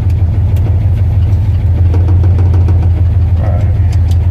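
1974 Ford F250 pickup's engine idling steadily.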